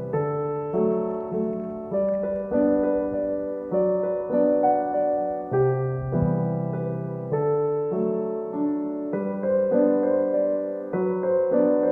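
Background piano music: a slow, gentle piano piece with chords struck about once a second.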